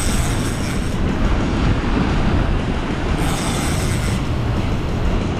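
Wind rumbling on the microphone over surf breaking against a rock ledge, with louder stretches of hiss as waves wash in, once at the start and again about three seconds in.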